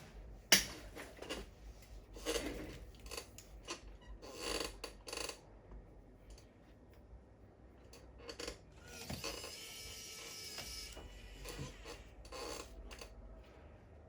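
Scattered clicks, taps and light rattles of small tools and plastic and metal laptop parts being handled during disassembly, with a sharp click about half a second in and a short steady whirring stretch about nine seconds in.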